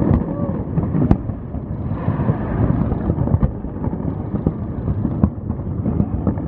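Fireworks display: a dense, continuous rumble of aerial shells bursting, with sharper single bangs about one, three and a half and five seconds in.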